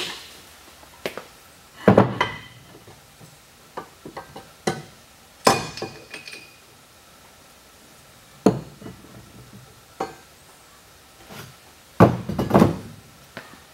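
Metal gearbox parts and a holding fixture being handled and set down on a wooden workbench: a dozen or so separate knocks and clinks at irregular intervals, a few with a short metallic ring.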